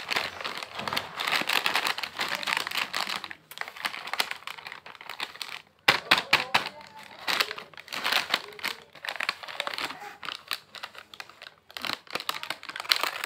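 Plastic snack packet crinkling and crackling irregularly as it is handled and squeezed in the hands.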